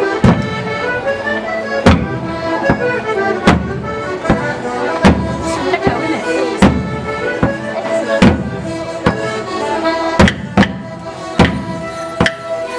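Live Border morris dance music: a folk tune of held notes, cut through by sharp clacks on the beat about every 0.8 seconds, every second one louder.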